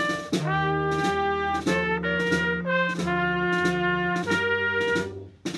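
Instrumental background music with a steady beat and changing held notes. It drops out briefly near the end, then comes back.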